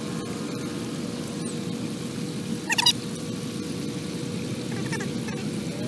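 Steady low outdoor rumble with a faint hum, broken about three seconds in by a short, loud, squeaky chirping call, and a fainter one near five seconds.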